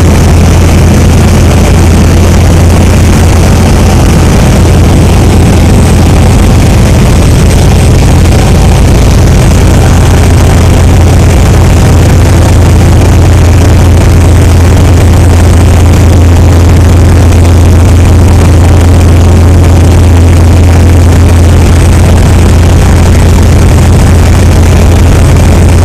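Motorboat engine running steadily at cruising speed: a loud, constant low drone over the rush of churning water.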